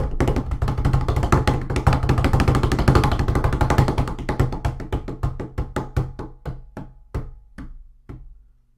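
Cartoon brawl sound effect: a dense flurry of knocking hits over a low hum. The hits thin out and slow to a few a second, fading and stopping near the end.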